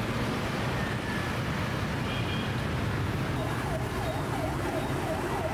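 Steady street traffic noise from motorbikes and cars. About halfway through, an emergency vehicle's siren starts wailing rapidly up and down, about three swoops a second.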